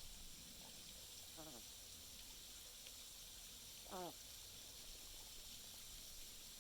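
Sleeping duck snoring: two short pitched snores, one about a second and a half in and a louder one about four seconds in.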